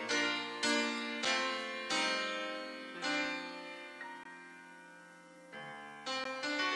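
Solo keyboard music: slow chords struck one after another, each left to ring and fade. One long chord dies away in the middle before the playing starts again near the end.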